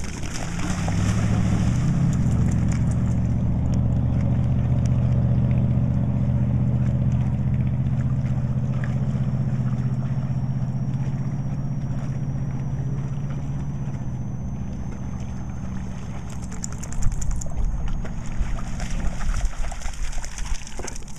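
A motorboat engine running steadily, starting about a second in and fading away after about fifteen seconds. Near the end a dog splashes through shallow water.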